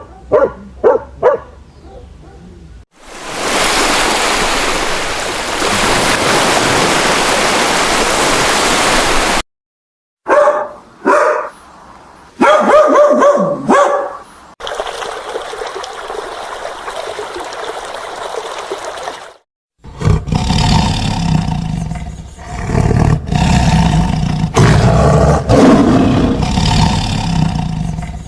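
A string of separate animal-sound clips cut together: a few short dog barks at the start, then loud roaring calls of large animals in several segments, each ending abruptly.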